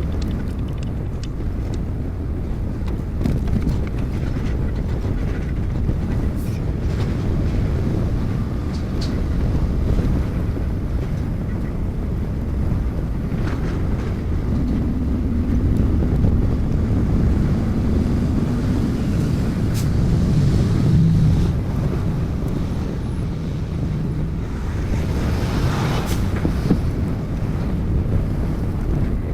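Volvo semi truck's diesel engine running at low speed in a steady low rumble, its note rising and shifting for a while past the middle as the truck moves.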